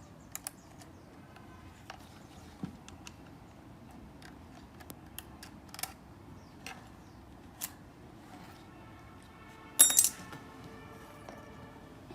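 Small metal parts of a concrete drill clicking and clinking as they are handled and fitted together by hand, with one louder metallic clatter about ten seconds in.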